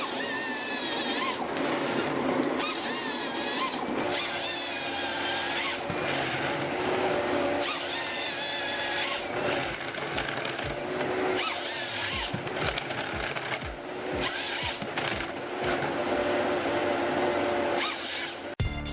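Forestry harvester working a tree: a machine hum and a wavering, high-pitched saw whine over the noise of cutting wood.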